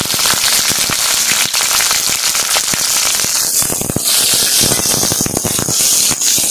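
Chopped capsicum and onion frying in hot oil in a kadai, giving a loud, dense crackling sizzle as they are stirred with a metal spatula.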